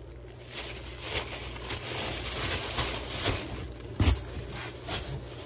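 Plastic fish-shipping bags crinkling and rustling as they are handled, with one sharp knock about four seconds in.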